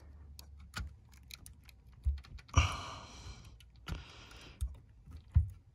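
Scattered light clicks and low knocks of wires being handled and pushed into the terminal block of a Honeywell zone damper actuator, with two short hissy rustles near the middle.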